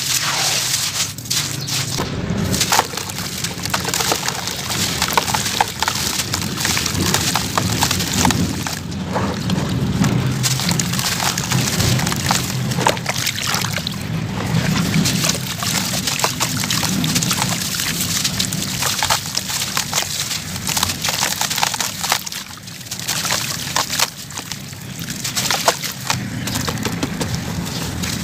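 Hands crushing and crumbling wet sand-cement lumps in a plastic basin of water: dense, continuous gritty crunching and crackling mixed with wet sloshing.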